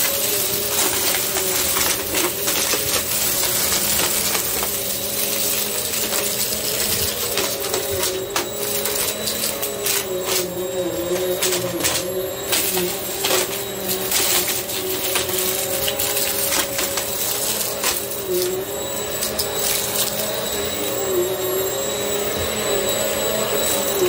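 Upright vacuum cleaner running on carpet, its motor tone steady but dipping slightly in pitch now and then as it is pushed, with frequent sharp clicks and rattles of coins, pebbles and grit being sucked up through it.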